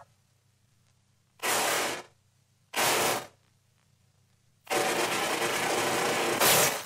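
Steam locomotive sound effect: two short hisses of steam, then a longer hiss of about two seconds, with near silence between them.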